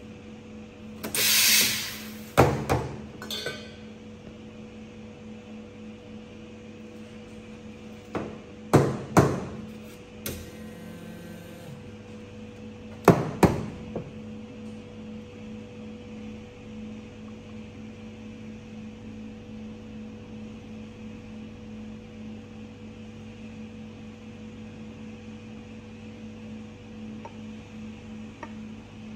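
Espresso bar sounds: a short, loud hiss of steam about a second in, typical of a steam wand being purged, then three clusters of sharp knocks and clanks from metal milk pitchers and cups being tapped and set down. A steady low machine hum runs underneath, and after the last knocks only the hum remains.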